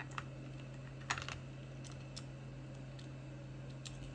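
Light clicks and taps of a screwdriver working at a screw inside a plastic speaker housing, with a short cluster of clicks about a second in, over a steady low hum.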